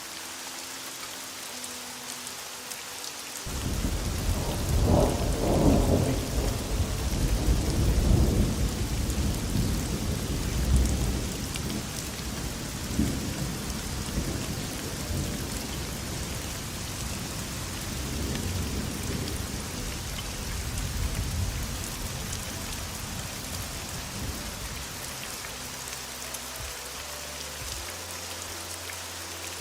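Steady heavy rain hissing, with a long rolling rumble of thunder that breaks in about three seconds in, is loudest over the next several seconds, and slowly fades away before the end.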